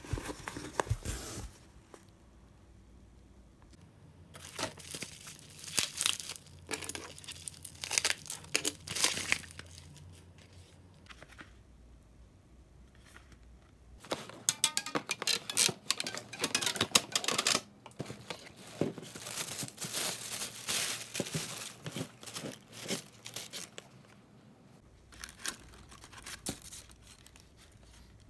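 Packaging being handled while a parcel is unpacked: cardboard box flaps, plastic bubble wrap and tissue paper rustling in irregular bursts, with short quiet gaps between them.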